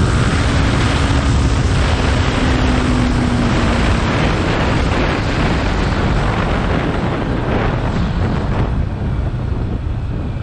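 Yamaha R15 V3's 155 cc single-cylinder engine and a heavy rush of wind over the microphone at highway speed, the bike slowing in sixth gear from about 118 to 50 km/h. The noise eases off a little near the end as the speed drops.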